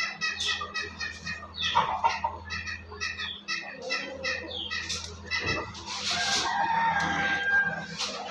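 Chickens clucking in a rapid string of short calls, then one longer drawn-out call about six seconds in.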